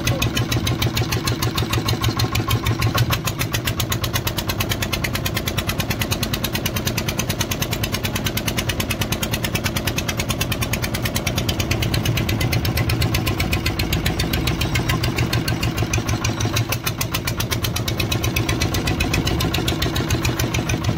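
A fishing boat's inboard engine running steadily under way, with an even, rapid beat.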